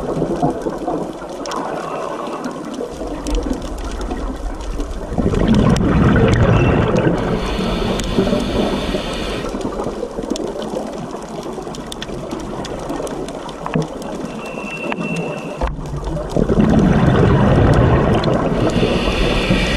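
Scuba regulator breathing underwater. Two long rushes of exhaled bubbles, about five seconds in and again near the end, each followed by the hiss of an inhale, with scattered faint clicks in between.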